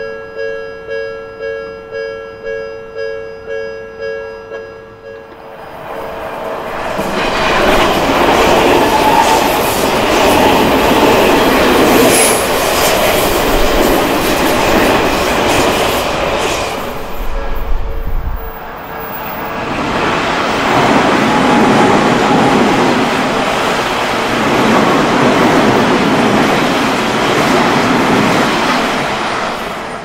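Japanese level-crossing warning bell ringing in quick repeated strokes, about two a second, then an Odakyu commuter electric train passing over the crossing. After a short lull a second train passes.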